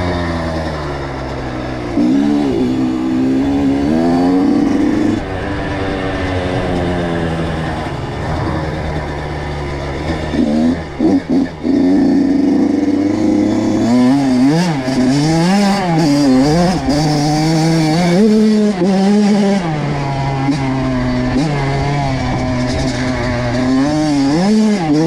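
Kawasaki KX85 two-stroke single-cylinder dirt bike engine running under load, its pitch rising and falling as the throttle is worked. It holds fairly steady for the first ten seconds, cuts in and out a few times a little before halfway, then revs up and down repeatedly through the second half.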